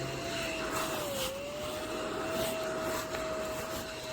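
Small battery-powered desktop mini vacuum running with a steady whine as it is passed over spilled ash. The pitch dips briefly about a second in, with a few faint light clicks along the way.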